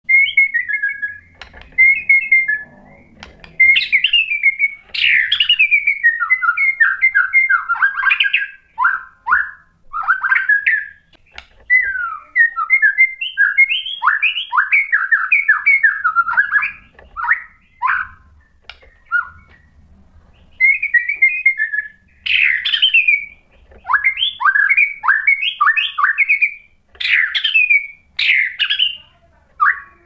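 White-rumped shama (murai batu) singing: a long run of varied, fast phrases of rapid down-sweeping notes and trills, broken by short pauses.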